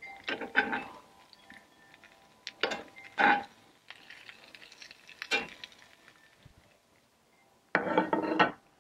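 Metal grill tongs clinking and scraping in a cast iron skillet as vegetables are tossed: a few separate clinks and knocks, the loudest about three seconds in, with a busier stretch of clatter near the end.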